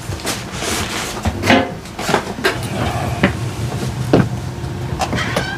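Cupboard being opened and papers put away: several short knocks and clicks with some rustling, over a low steady hum.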